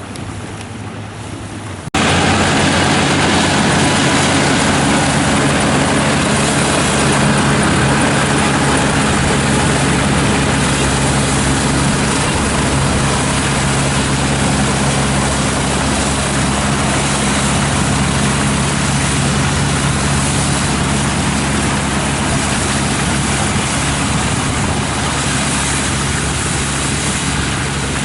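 Kubota ER447 combine harvester running steadily while harvesting wheat: a loud, even engine drone under a dense rushing noise, which starts abruptly about two seconds in after quieter wind noise.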